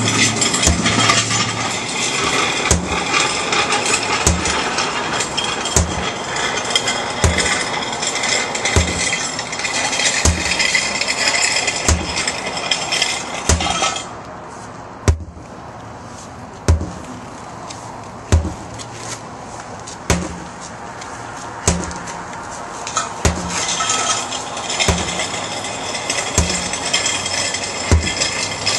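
Sledgehammer striking a large tractor tire, one heavy thud about every one and a half seconds. Under the strikes runs a steady scraping rush from a thick rope being pulled hand over hand over asphalt. It stops for several seconds about halfway through, then starts again.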